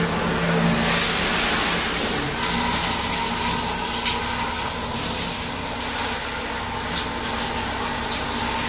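Handheld shower head running, a steady spray of water splashing over a child and into a bathtub.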